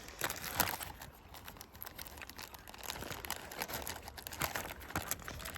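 Packaging crinkling and rustling in irregular short crackles as a kit part is unwrapped by hand.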